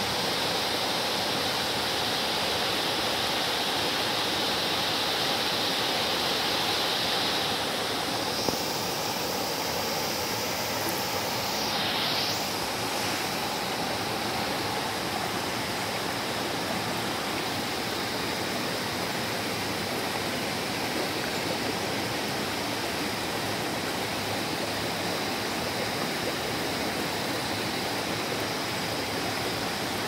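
Shallow rocky mountain stream rushing over stones close by: a steady, unbroken rush of running water.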